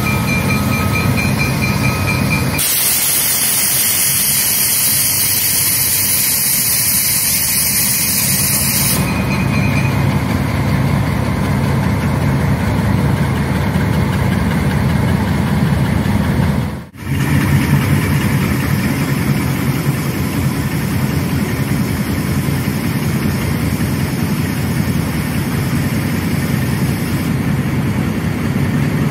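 GE U20C diesel-electric locomotives, with their twelve-cylinder FDL engines, running steadily under load as they haul a loaded freight train. A loud hiss comes in sharply about three seconds in and stops about six seconds later, and the sound cuts out for a moment about seventeen seconds in.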